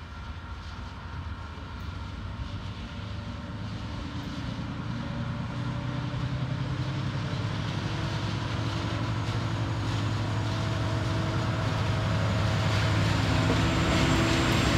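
Two TasRail diesel-electric locomotives working hard under power as they haul a container train, their engines' low drone growing steadily louder as they approach and pass close. The steel wheels and the high whine of the locomotives join in near the end.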